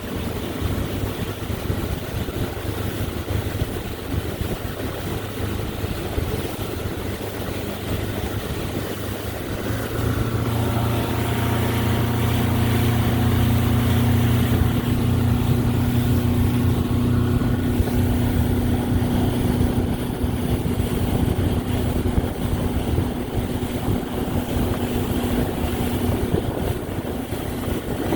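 Motorboat engine running under way, with water and wind hiss; about ten seconds in it speeds up and runs louder, then eases back near the end.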